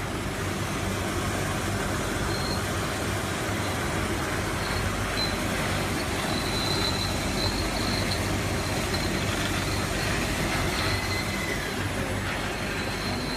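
Automatic sauce-bottle filling and capping line running: a steady mechanical noise with a low hum, and a thin high squeal that comes and goes.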